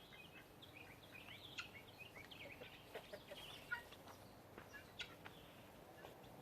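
Faint, quick chirps and squeaks from small animals, scattered throughout, with a few slightly louder calls near the middle.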